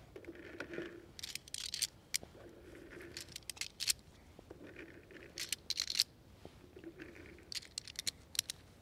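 9mm cartridges being pressed one at a time into a Smith & Wesson M&P9 Shield EZ magazine by thumb: a short scrape and click for each round, about every second and a half.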